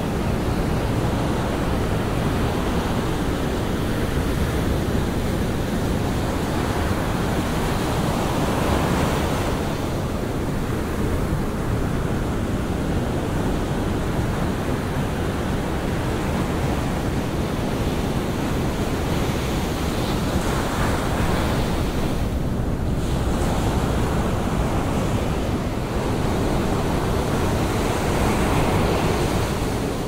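Rough sea surf: waves breaking and washing up a sand beach in a continuous rush, swelling briefly as bigger breakers come in about every ten seconds.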